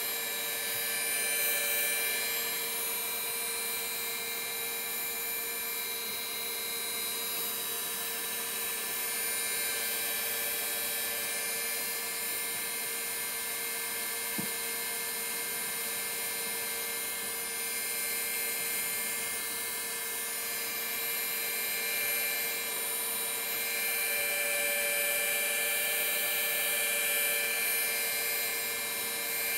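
Rotor of a Boeing 737 vertical gyroscope (model 314) spinning at its stabilized running speed: a steady whine made of several fixed tones over a high hiss.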